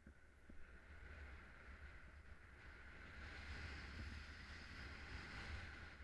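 Faint, steady wind noise on the camera of a paraglider in flight: a low rumble with an even hiss over it.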